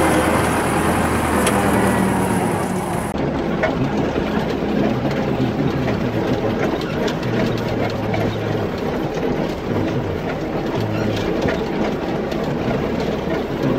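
Belarus MTZ-82 tractor's four-cylinder diesel engine running steadily while driving, heard from inside the cab, with frequent clicks and rattles. The sound changes abruptly at an edit about three seconds in.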